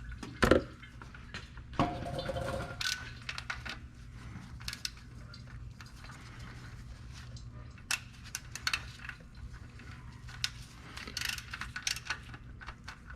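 Scattered metallic clicks and clinks of a ratchet and socket working an oil pan drain plug back in, with a sharper knock about half a second in.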